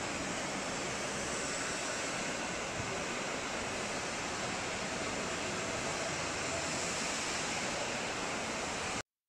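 Steady, even rushing noise with no clear source, which cuts off abruptly near the end.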